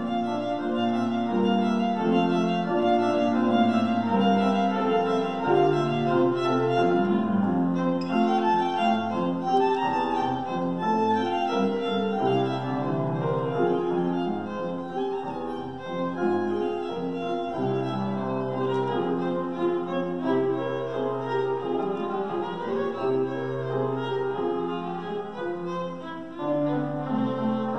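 Violin playing a melody with piano accompaniment, the piano holding long low chords under the violin line.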